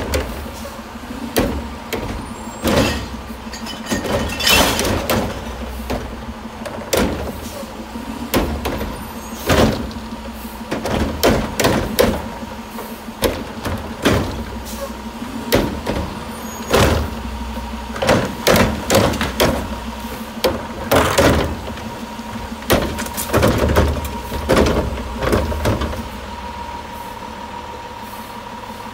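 Front-loader garbage truck's Curotto-Can automated arm grabbing and tipping residential carts, with repeated sharp clanks and bangs of plastic carts and lids against the can. The truck's engine runs underneath with a steady hum. The banging stops a few seconds before the end.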